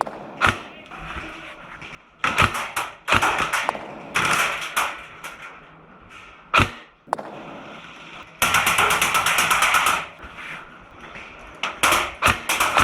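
Airsoft gunfire: scattered single sharp shots, and a rapid, evenly spaced burst of automatic fire lasting about a second and a half just past the middle.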